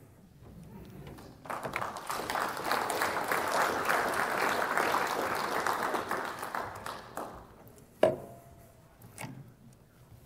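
Audience applauding after a talk, building up over the first couple of seconds, lasting about six seconds, then dying away. A single sharp knock follows near the end.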